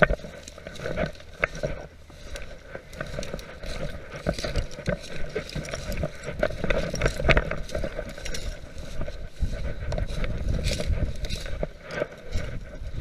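Footsteps crunching through dry fallen leaves and brush, with twigs snapping and brush scraping against clothing, close to the microphone.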